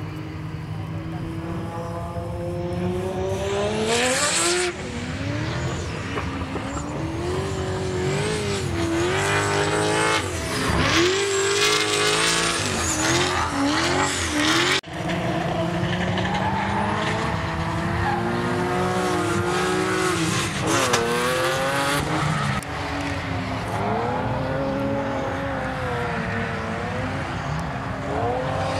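Drift cars revving hard as they slide through the corners, engine pitch climbing and dropping with each pull and lift, and tyres squealing and hissing as they smoke. There is a brief sudden break about halfway.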